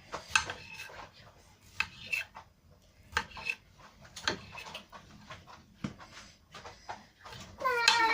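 Knife cutting cold, partly frozen beef into small pieces, the blade knocking against the dish or board beneath in irregular sharp taps, some with a short metallic ring. A short voice sounds near the end.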